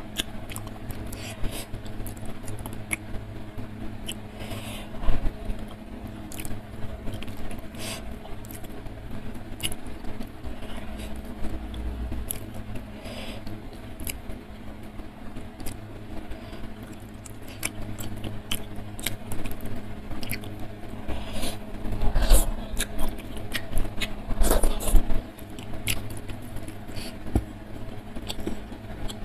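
Close-miked eating: wet chewing and mouth clicks, with fingers squishing and scraping rice and fish on the plate, in irregular bursts that grow busier about two-thirds of the way through. A steady low hum runs underneath.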